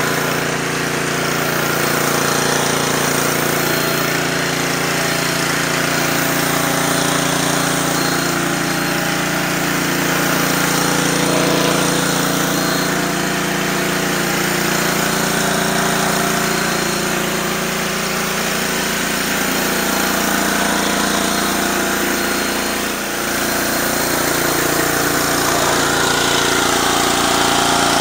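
Gas pressure washer with a Honda GCV190 single-cylinder engine running steadily under load, with the hiss of water spraying from a 15-inch surface cleaner onto concrete. The sound dips briefly about three-quarters of the way through.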